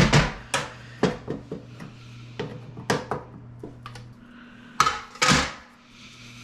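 Metal clinks and knocks of a paint can and its lid being handled and opened on an aluminium work platform, with a louder scrape about five seconds in. A steady low hum runs underneath and drops out for about two seconds near the end.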